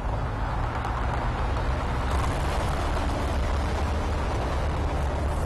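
A minivan driving along a dirt track: a steady low engine rumble with tyre noise on the loose surface, growing a little louder and brighter about two seconds in.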